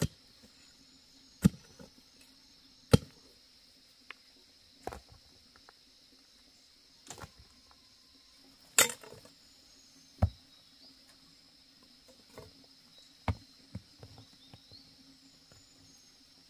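Sharp knocks of a hand tool striking, one every second or two at uneven intervals, the loudest a little past the middle, over a steady high-pitched insect drone.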